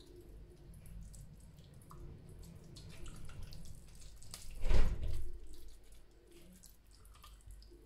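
Hands working an oily chermoula marinade into a whole fish in a glass bowl: wet squelching and small clicks, with one louder wet smack about four and a half seconds in.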